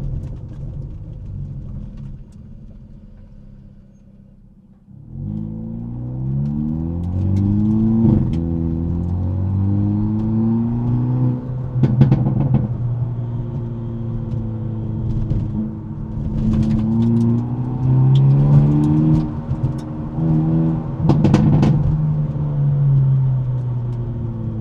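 Hyundai Elantra N's turbocharged four-cylinder engine and exhaust, heard from inside the trunk. It runs at a low rumble that fades for the first few seconds, then pulls hard from about five seconds in, its pitch climbing and dropping through several gear changes. Sharp exhaust pops crack at a few of the shifts.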